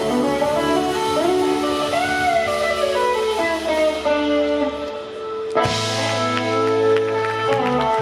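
Live blues band playing an instrumental passage led by electric guitar, with sustained and bending notes; about five and a half seconds in, the band moves to a new chord.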